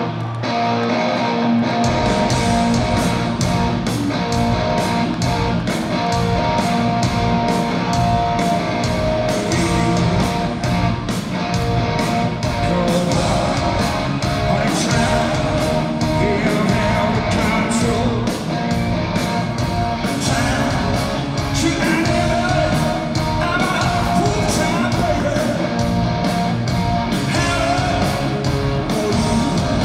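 Live rock band heard from the audience: an electric guitar riff alone, then drums and the full band come in about two seconds in, with a male lead singer over it.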